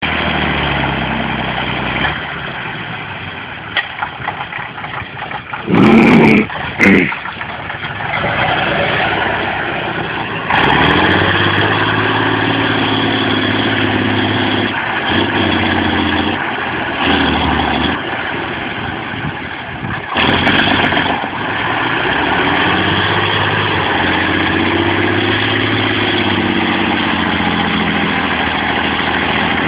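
Praga V3S military truck's air-cooled diesel engine running under load, its pitch rising and falling with the throttle. Two short, loud bursts of noise come about six and seven seconds in.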